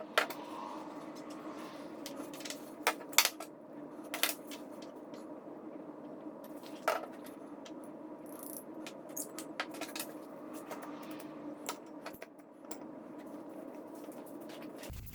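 Sharp metallic clicks and clinks, a dozen or so at uneven intervals, the loudest about three seconds in, over a steady low hum.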